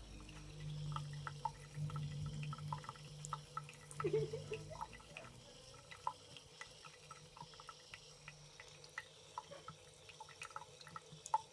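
A thin stream of water running from a bathroom sink tap, falling in quick, irregular drips while a cat laps from it. A low hum runs under the first half.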